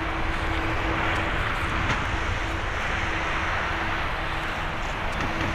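Airbus A330-200 jet engines running at low taxi power: a steady, even hum with a faint low tone that fades in and out.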